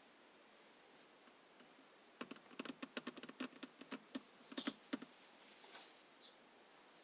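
Slime being worked by hand, giving a quick irregular run of small clicks and pops for about three seconds, starting about two seconds in.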